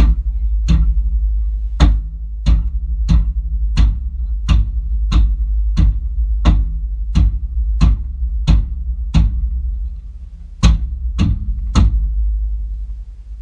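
A steady low engine rumble from the stationary Toyota rock crawler idling. Over it come sharp clicks about every two-thirds of a second, about sixteen in all, with a short pause a little after ten seconds.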